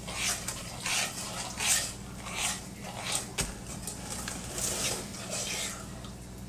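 A metal spoon stirring sugar syrup in a stainless steel saucepan, scraping against the pot in a steady rhythm of about one stroke every three-quarters of a second, easing off near the end.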